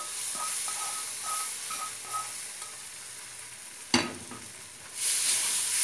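Wooden spoon scraping cooked curd cheese out of a nonstick frying pan into a second pan, with short repeated squeaky notes. About four seconds in, a sharp knock as the emptied pan is set down on the gas stove, and a second later a loud sizzling hiss starts as the pan is stirred.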